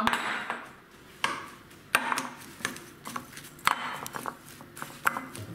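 A spoon stirring a thick, sticky mixture of grain flakes and honey in a bowl: irregular scrapes with sharp clicks of the spoon against the bowl.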